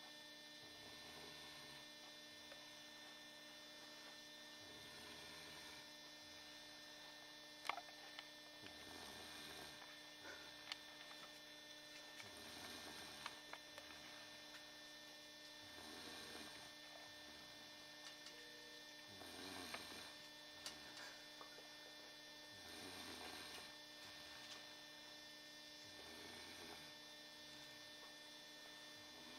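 A woman snoring in her sleep, one rough snore about every three and a half seconds, over a steady electrical hum, with a few small clicks.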